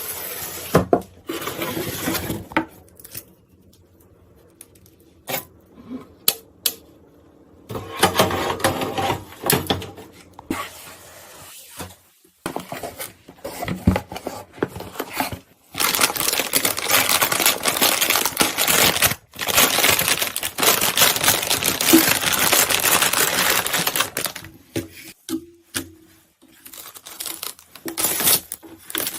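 Clicks, clinks and rustling of computer parts being handled and fitted together. Scattered sharp clicks, with a long stretch of rustling noise in the middle.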